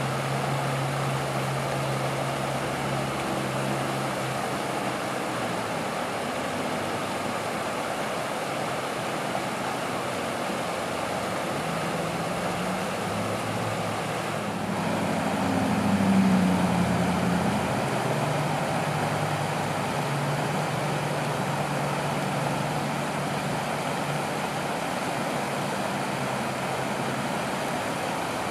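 Steady rush of flowing water under a low hum of motor traffic; the hum swells and shifts in pitch about halfway through, as a vehicle passes.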